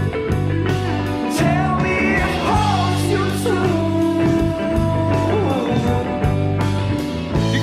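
Rock song playing as background music: guitar, bass and drums with a singing voice over a steady beat.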